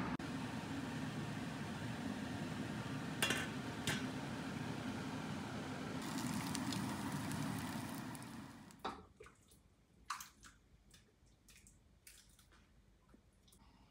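Steady frying noise that brightens into a sizzle about six seconds in, as savoury cake slices fry in a nonstick pan, with a couple of sharp clicks before that. The sizzle stops suddenly a little over two seconds later, leaving a few light clicks and taps of tableware.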